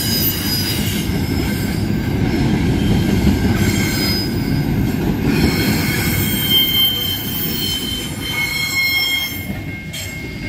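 A freight train's double-stacked container wagons rolling past: a heavy, continuous rumble of steel wheels on rail, with high-pitched wheel squeal rising and fading over it. The rumble eases a little near the end as the last wagons go by.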